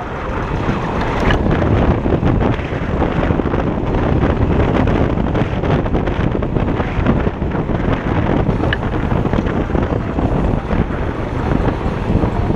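Steady wind buffeting the microphone, with tyre and road rumble from a Kaabo Wolf King GT electric scooter riding over asphalt.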